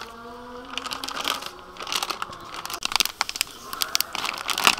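Plastic flour packet crinkling and crackling in irregular bursts as it is squeezed and shaken to pour flour into a steel bowl.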